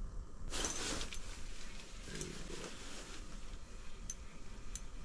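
A short rustle about half a second in, then quieter handling noise and a few small sharp clicks from hands working ice-fishing tackle and clothing, over a low steady rumble.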